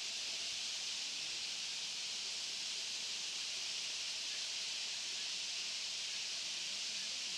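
Dense, unbroken chatter of a large flock of rosy starlings, thousands of calls blending into a steady high hiss.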